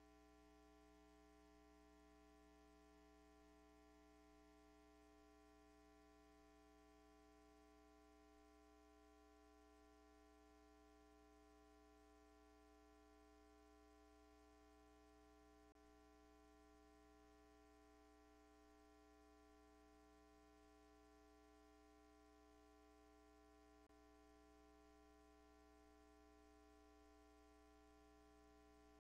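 Near silence: only a faint, steady hum.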